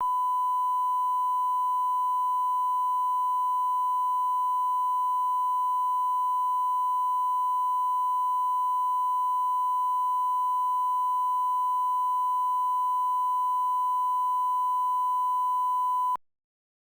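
Steady 1 kHz line-up tone, the reference tone that runs with colour bars at the head of a TV production, cutting off abruptly near the end.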